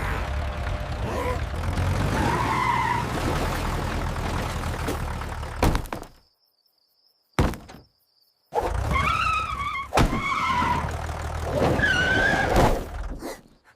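Vehicle engine running with a steady low rumble and occasional thunks. It drops out for about two seconds in the middle, broken by one knock, then comes back with short gliding calls over it.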